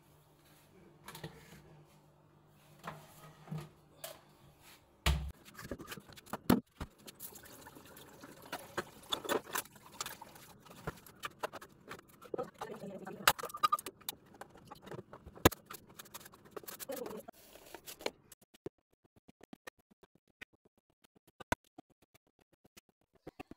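Kitchen clatter as lassi is made: containers and utensils knocked, clinked and set down on a counter around a blender jar, with a sharp thump about five seconds in. A faint steady low hum runs under the first few seconds, and the knocks thin to scattered clicks near the end.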